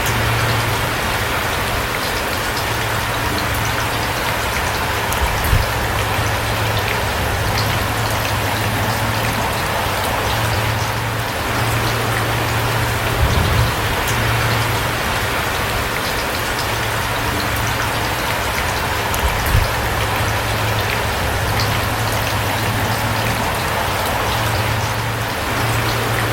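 Steady rain falling, an even hiss of drops, with a few brief louder hits now and then.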